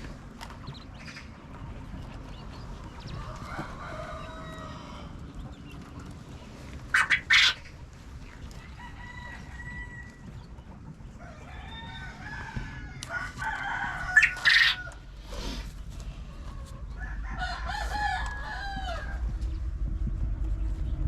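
Chickens clucking and calling, with a rooster crowing near the end. Two loud, sudden bursts stand out, about seven seconds apart.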